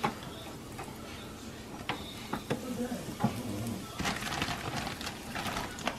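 Metal tongs clicking and a plastic zipper bag rustling as breaded rabbit pieces are lifted out and put into a deep-fryer basket; a soft hiss joins in about four seconds in.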